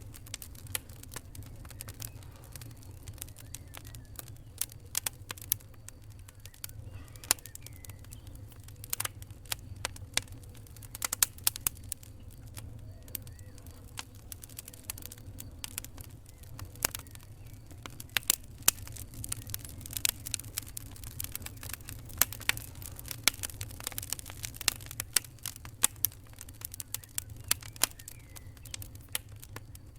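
Fire crackling: irregular sharp pops and snaps, some much louder than others and coming more thickly in the second half, over a steady low rumble.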